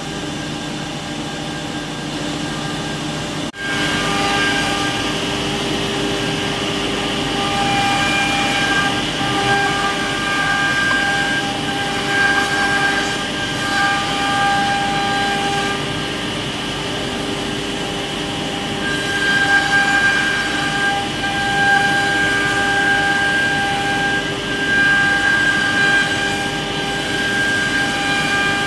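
CNC router spindle running at high speed while routing grooves into a veneered cabinet-door panel: a steady high whine over a rushing hiss, its tones swelling and fading as the bit cuts. The sound briefly drops out about three and a half seconds in, then continues a little louder.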